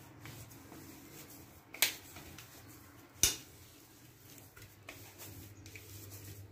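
Hands kneading a damp dough of grated raw potato and flour on a steel plate: faint squishing and rubbing, with two sharp clicks about a second and a half apart.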